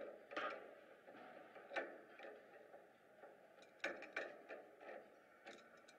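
Adjustable wrench working a nut on a steel adjusting rod: a string of sharp metal clicks and clinks at uneven intervals as the wrench is turned and refitted on the nut.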